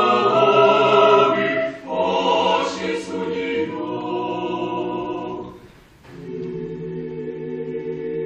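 Mixed choir of men's and women's voices singing Orthodox church music a cappella in sustained chords. About six seconds in, the phrase fades to a short pause, and a softer, lower chord begins.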